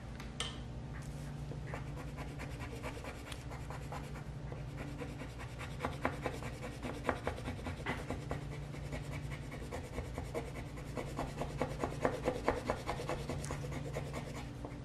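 A beige colored pencil scribbling on paper in quick back-and-forth shading strokes, which come thicker and louder from about six seconds in, over a low steady hum.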